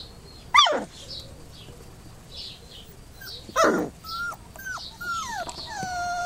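Dobermann puppy yelping and whining: two sharp yelps, one about half a second in and one around the middle, then a run of short whines and a longer drawn-out whine near the end.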